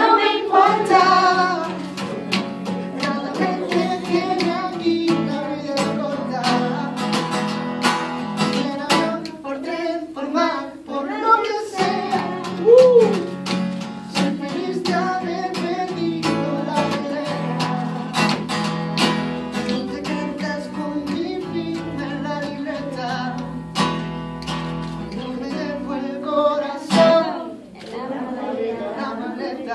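A man singing live to his own strummed jumbo acoustic guitar, with steady chord strums under the melody.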